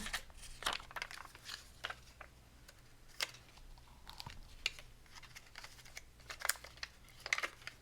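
Light scattered clicks, taps and crinkles of paper and small craft pieces being handled on a worktable, as adhesive gems are picked off their sheet and placed on a card.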